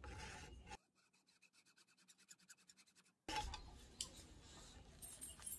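Hacksaw strokes rasping through a small plastic spool holder clamped in a vise, quiet and scratchy. The sound drops away almost completely for a couple of seconds in the middle, then the faint sawing returns with a few sharp clicks.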